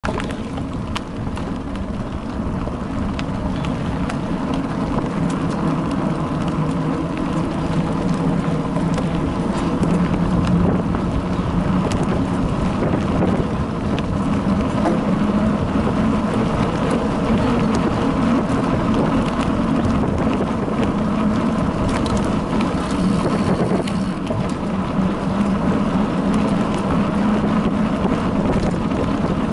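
Bicycle riding along a dirt forest trail, heard through a bike-mounted action camera: a steady rumble of tyres and wind with scattered clicks and rattles over bumps. It grows slightly louder as the bike picks up speed.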